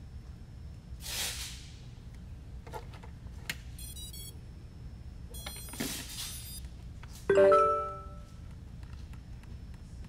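Flywoo FPV quad powering up on its battery: a few small handling clicks, then, about seven seconds in, the motors give the ESCs' startup beeps, a short cluster of several pitched tones sounding together and dying away within about a second, the loudest sound here.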